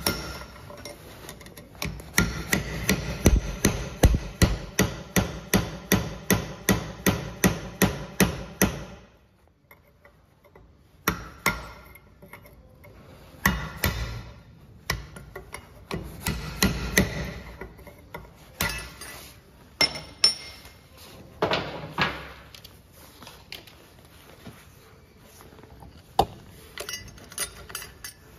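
Hammer blows on a steel drift set in a forklift axle's king pin bore, knocking out the seized king pin bearing race. First a fast run of about three strikes a second for around seven seconds, then a pause, then slower scattered blows.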